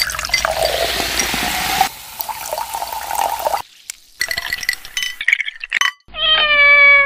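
Soda poured from a bottle over ice into a glass, fizzing, followed a few seconds later by light clinks. Near the end a cat gives one long meow, the loudest sound here.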